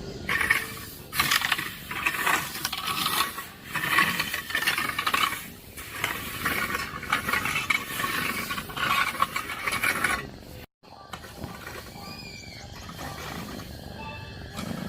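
Dense metallic rattling and clattering of dry pig feed in a metal feeder, in irregular bursts for about ten seconds, cutting off suddenly. After a short break it is much quieter, with a few faint high squeaky calls.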